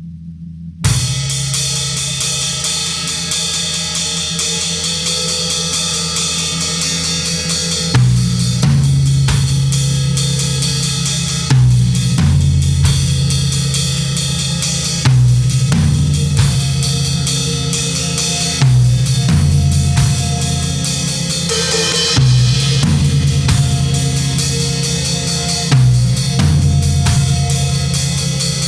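Band music: a low drone gives way about a second in to a full drum kit with cymbals entering suddenly. From about eight seconds a low bass figure comes in, repeating roughly every three and a half seconds.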